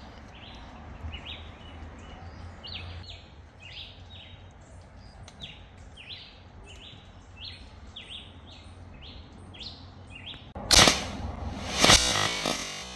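Air rifle being fired: two sharp cracks about a second apart near the end, over a steady run of short high chirps in the background.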